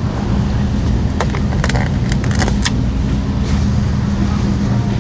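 Steady low hum of a store's refrigerated meat case and ventilation, with a run of sharp clicks and crinkles about one to three seconds in as a plastic-wrapped tray of pork loin chops is lifted out.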